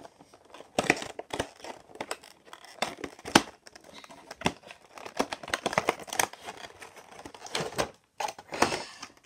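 A cardboard model box being opened by hand: its end flap is pulled back and a black plastic packaging tray is slid out, with irregular crinkling, scraping and knocking. The sharpest knock comes about three and a half seconds in.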